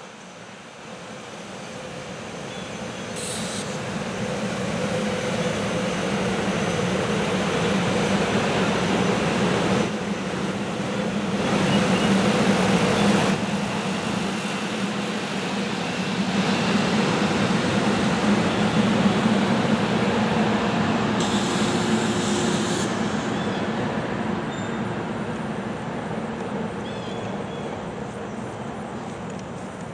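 SEPTA Silverliner IV electric multiple-unit train approaching and passing: a rumble of wheels on rail with a steady hum. It grows louder to a peak around the middle and fades as the train goes away, with a few short hissy high-pitched spells.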